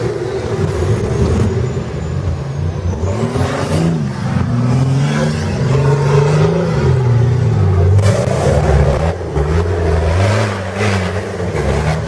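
Engine of a 4x4 trial competition vehicle revving up and down over and over, its pitch rising and falling every second or so.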